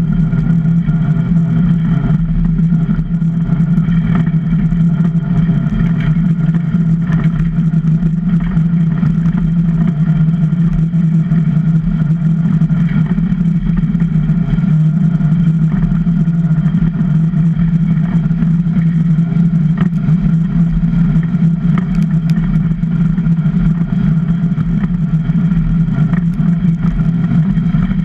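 Steel runners of a Super DN iceboat skating fast over hard lake ice: a loud, steady rumbling drone with a constant low hum, carried through the hull to the deck-mounted camera.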